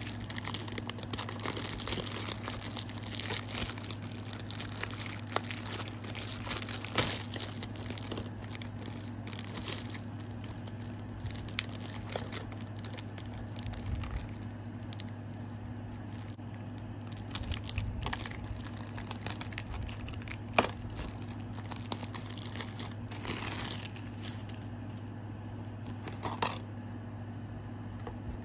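Plastic wrapping on a DVD case crinkling and being torn off, busiest in the first ten seconds and sparser afterwards, with scattered clicks, over a steady low hum.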